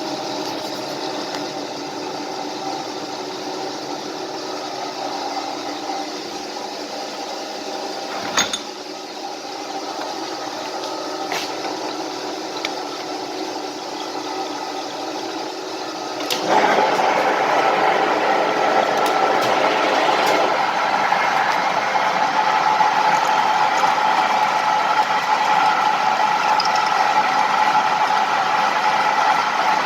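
Metal-turning lathe running with a steady multi-tone hum and one sharp click partway through. About halfway, it suddenly turns louder and noisier as the drill bit in the tailstock starts cutting into the workpiece, and the cutting sound carries on steadily.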